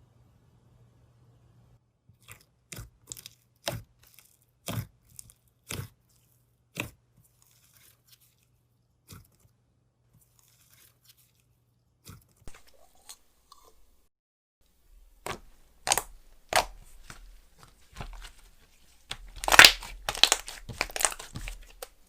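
Apple-jam-cream slime being poked and pressed by hand, giving sharp sticky clicks and pops about once a second. About fifteen seconds in, the slime is worked faster into a dense run of crackling and popping, loudest near the end.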